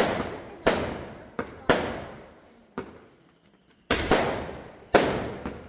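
Diwali fireworks going off: about half a dozen loud, sharp bangs at irregular intervals with a few fainter pops between them, each bang trailing off in echo over about a second.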